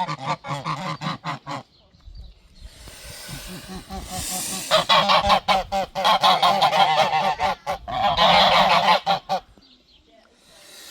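A flock of domestic geese giving alarm calls to defend their territory: rapid, loud honking that breaks off about a second and a half in. A breathy hiss fills the lull, then a louder chorus of overlapping honks runs from about five to nine and a half seconds in before it dies away.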